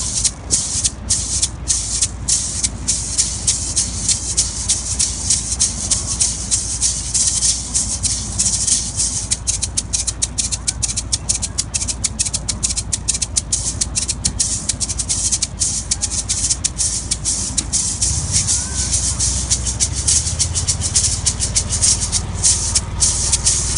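A pair of Colombian Caribbean maracas shaken in a quick, steady rhythm of crisp, hissing shakes. A low rumble runs underneath and grows stronger near the end.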